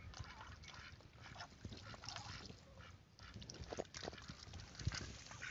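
A few domestic ducks on the water, giving faint, short, scattered calls.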